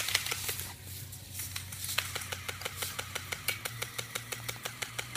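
Airsoft gun firing on full auto: a short burst, a brief pause, then a long steady string of rapid shots at about seven or eight a second.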